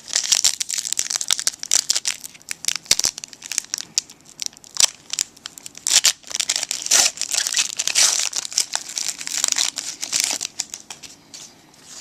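Foil wrapper of a 2013 Panini Prestige football card pack crinkling and tearing as it is opened and handled, a dense run of crackles and snaps that thins out near the end.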